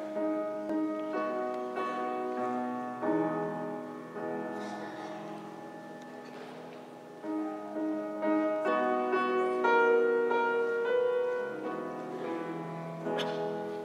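Grand piano playing a slow introduction of chords, each struck and left to ring and fade.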